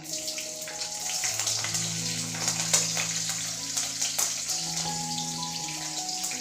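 Green chillies sizzling in hot oil with cumin, mustard seed and fenugreek: a steady hiss full of sharp crackles and spits that starts as they go in. Soft background music plays underneath.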